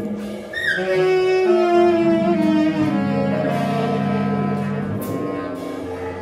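Live free-improvised music from saxophone, bass clarinet, electric guitar and drums: long, overlapping held tones, with a rising glide about half a second in and a sharp drum or cymbal hit about five seconds in.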